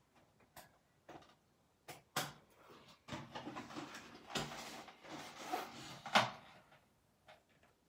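Handling of a cardboard toy box and a plastic Nerf blaster: a few scattered light knocks and clicks, then about three seconds of continuous scraping and rustling, ending in a sharper knock about six seconds in.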